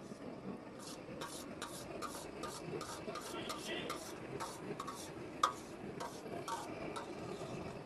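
Steel ladle stirring and scraping in a wide steel pot of stew, with quick, irregular scrapes and clinks, two or three a second, and one sharper clink about five and a half seconds in.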